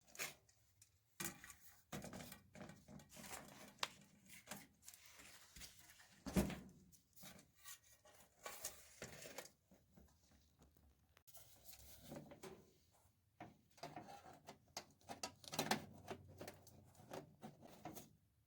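Quiet, irregular handling noises: scattered knocks, rustling and scraping, with one louder thump about six seconds in.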